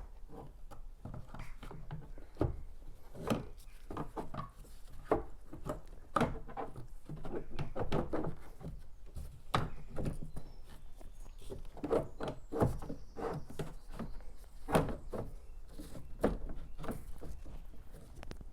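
Plastic cowl cover being worked loose by hand, with irregular knocks and clicks of hard plastic.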